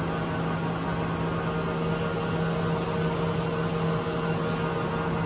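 Weiler E110 lathe running with its spindle turning, giving a steady hum at one constant pitch.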